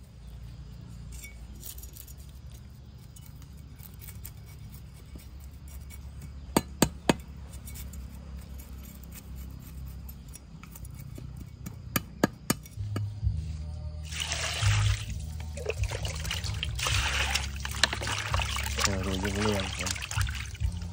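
A few sharp clinks, then liquid pouring and splashing in an uneven rush over the last several seconds, over a steady low hum.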